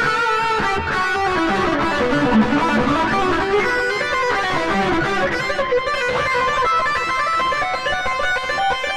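Electric guitar playing a lead line through a Korg AX3000G multi-effects processor on its distorted solo preset, with analog delay repeats after the notes.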